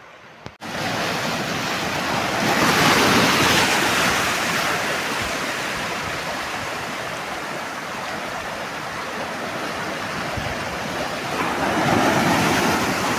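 Sea surf breaking and washing over shoreline rocks, a steady rush that swells twice, a few seconds in and again near the end.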